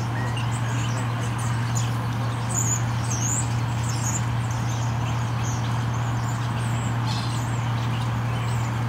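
A steady low hum, with a few faint, high bird chirps about three seconds in.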